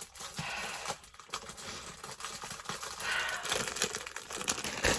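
Irregular rustling and crinkling with small clicks, as of packaging being handled, growing louder in the last two seconds.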